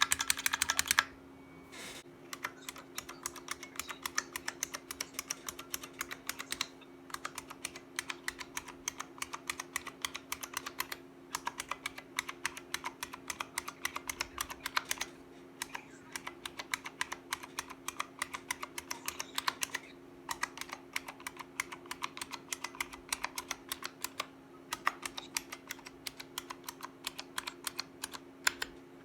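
Typing on a repaired IBM Model M keyboard, its buckling-spring keys clicking in fast runs with short pauses between, over a steady low hum.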